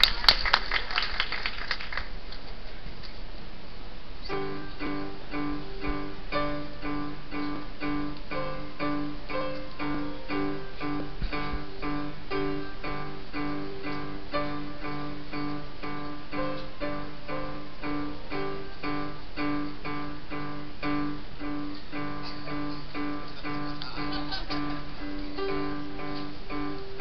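A short burst of audience clapping, then from about four seconds in a grand piano played as a duet by two children: a steady, evenly repeated low bass figure under a simple melody.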